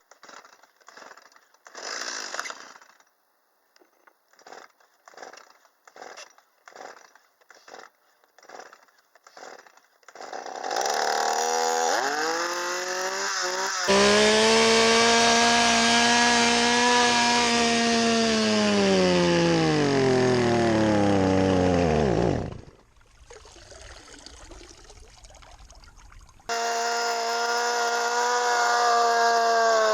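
Stihl MS170 two-stroke chainsaw being pull-started with about ten cord pulls, catching, then held at full throttle. Its pitch sags and it dies abruptly as the carburetor goes under water. After a few seconds of faint splashing, it is heard running at full throttle again.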